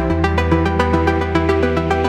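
Electronic background music: fast repeating synthesizer notes over a held bass line that shifts to a new note just after the start.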